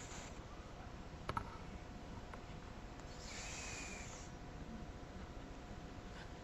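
A sleeping cat snoring softly: one breathy, hissing snore with a faint whistle, about three seconds in and lasting about a second. A small click comes a little over a second in.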